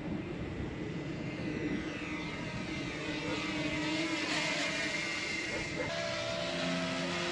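Propeller whine of a small aircraft passing overhead, its pitch sweeping as it goes by and loudest about four seconds in.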